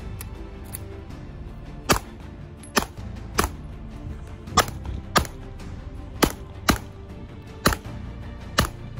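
Custom Glock 19 9mm pistol firing nine shots at an uneven pace, starting about two seconds in, each shot a sharp crack less than a second to about a second apart.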